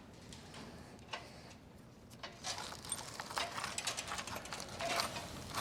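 Scattered light clicks and rustling, getting busier about two seconds in: small hardware and line clamps being handled and sorted from a bag.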